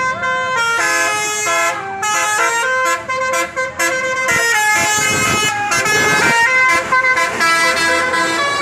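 Bus 'telolet' horn, a Basuri multi-tone air horn, playing a melody of quick stepped notes, one after another without pause.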